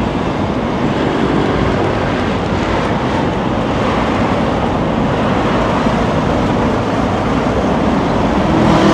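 Steady rumble of passing vehicles in a city.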